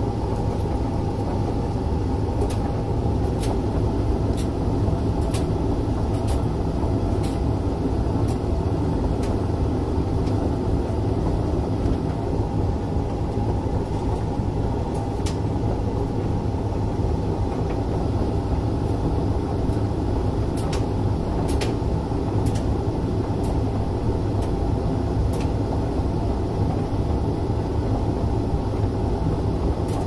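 Hoover tumble dryer running a drying cycle: a steady hum from the drum and fan, with scattered light clicks.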